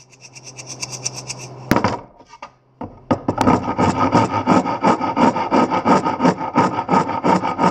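Hand saw cutting a pine board. Light quick strokes at first, a sharp knock just under two seconds in, then steady, louder back-and-forth strokes at about four a second.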